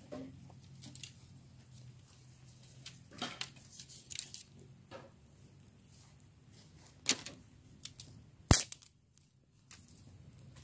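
Open fire of dry leaves and twigs crackling, with irregular pops and snaps and one sharp, loud crack about eight and a half seconds in.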